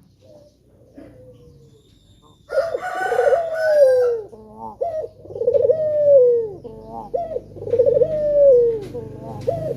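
Male puter dove cooing: about four rolling coos, each a wavering start followed by a long falling note, roughly every two to two and a half seconds from about two and a half seconds in.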